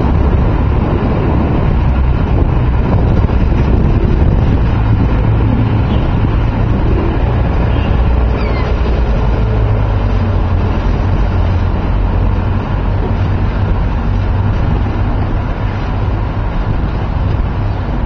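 Steady low outdoor rumble with a noisy hiss over it, fading a little toward the end.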